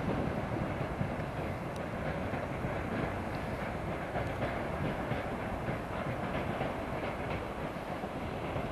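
Ballast hopper wagons of a works train pushed by BB 69000 diesel locomotives, rolling slowly with a steady rumble and light wheel clicks over the rail joints in the middle.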